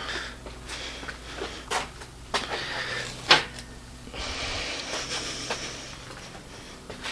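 Scattered clicks and knocks of tools and parts being handled and set down, the sharpest about three seconds in, with a soft hiss from about four to six seconds in.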